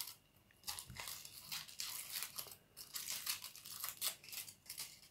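Foil wrapper of a Kinder Surprise chocolate egg being peeled off by hand, crinkling and tearing in short, irregular crackles.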